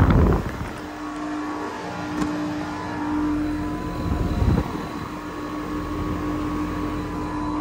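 Outdoor air-conditioning condenser running, its fan turning with a steady, even hum. A couple of low thumps and rumbles of handling come right at the start and again about halfway through.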